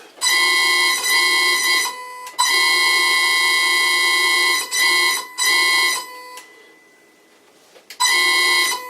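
Three-phase electric motor fed by a variable frequency drive giving a loud, steady high-pitched whine that cuts in and out about five times, with a longer break near the end. The dropouts are the sign of the old, worn on-off switch making and breaking contact.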